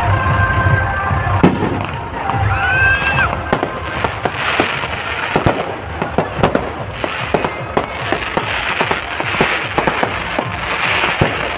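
Aerial fireworks display: a dense, irregular series of bangs and crackles from bursting shells.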